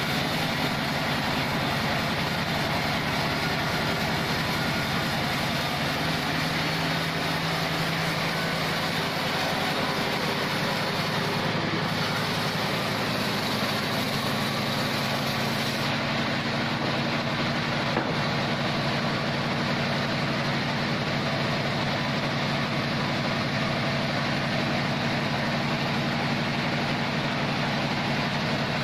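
Engine of a log band sawmill running steadily, its pitch shifting slightly about ten seconds in.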